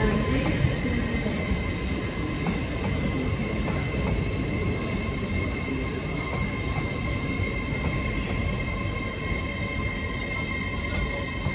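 LNER Azuma (Class 800-series) trains running past on the station lines: a steady rumble of wheels on rails with a steady high whine over it.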